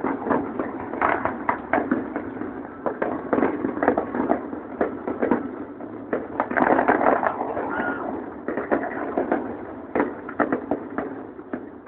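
Fireworks going off in rapid succession: a dense, continuous run of bangs and crackles.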